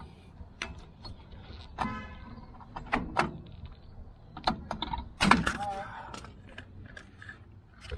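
Metal clinks and knocks of drum-brake hardware and hand tools being worked into place on a truck's rear brake assembly, with a brief ringing twice and the loudest clank a little after five seconds in.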